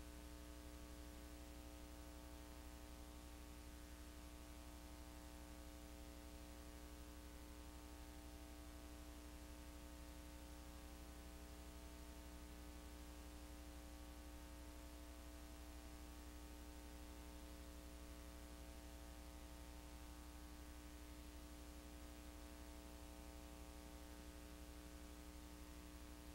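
Near silence: a steady electrical hum with faint hiss, unchanging throughout.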